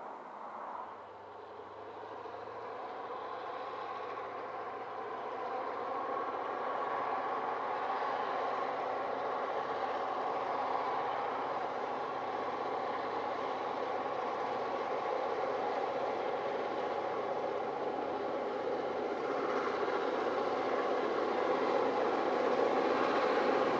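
A narrow gauge train running and growing steadily louder as it draws closer.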